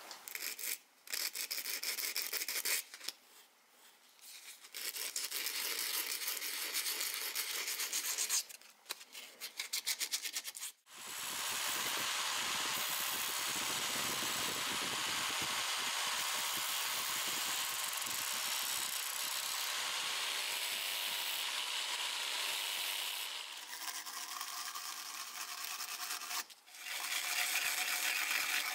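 Sandpaper rubbing by hand on a small metal dagger guard, in irregular strokes that quicken near ten seconds in. About eleven seconds in, a bench-mounted spinning wheel starts a steady grinding hiss as the guard is held against it, for about fifteen seconds. Near the end comes a short stretch of wire-brush scrubbing on the guard.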